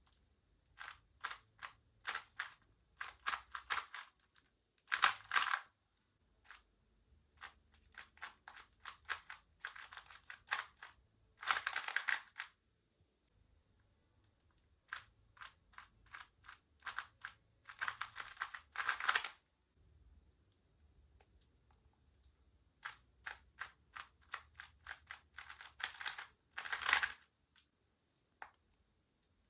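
A 2x2 Rubik's Cube being turned by hand: quick runs of sharp plastic clicks and clacks as its layers are turned through algorithms, in bursts of a few seconds with short pauses between.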